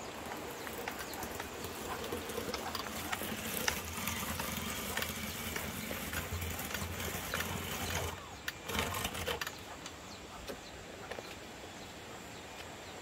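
Cassava slicer with a round bladed disc chopping cassava roots into shreds: a steady rattling run of small ticks over a low hum. It turns quieter after about eight seconds.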